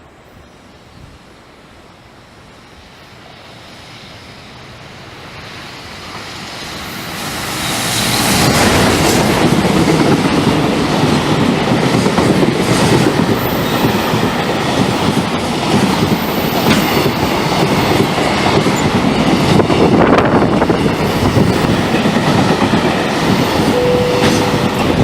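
Freight train approaching, growing steadily louder over the first eight seconds, then running through the station without stopping: a long, loud stretch of wagons with wheels clacking over the rail joints.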